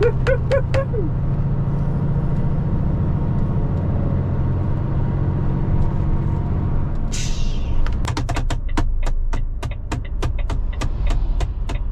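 Lorry engine running steadily, heard from inside the cab while driving. About seven seconds in comes a short hiss of air, then a run of sharp, rapid clicks to the end.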